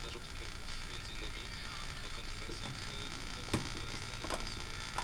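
Mechanical clicking and ratcheting from a Panasonic RC-6040 flip clock radio's controls being worked, with three sharper clicks in the second half, over a faint steady hiss.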